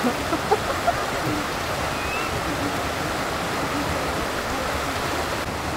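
Steady rush of flowing water, with a few short, soft sounds in the first second.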